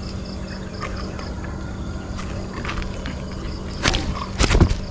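A few sharp knocks near the end, the last of them heavier thumps, over a steady low hum.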